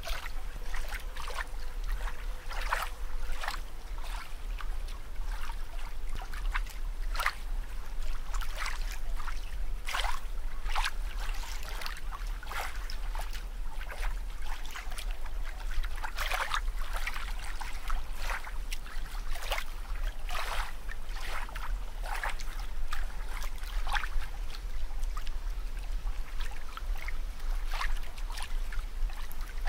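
Water sounds: irregular bubbling and small splashes crackling on and off, over a steady low hum.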